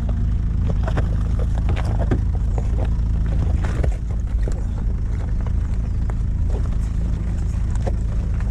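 Jeep Liberty KJ's engine running low and steady while it crawls off-road, with scattered short knocks and clatters.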